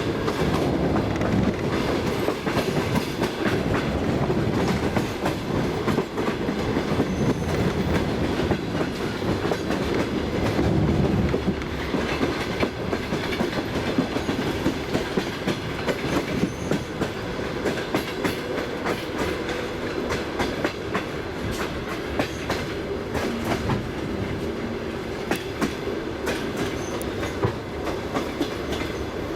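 Passenger train rolling on the rails, its wheels clicking irregularly over rail joints over a steady low rumble.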